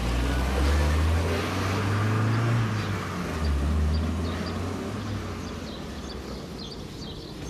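A van's engine and tyres as it passes close by and drives away. The low rumble is strongest in the first few seconds, then fades as the van recedes.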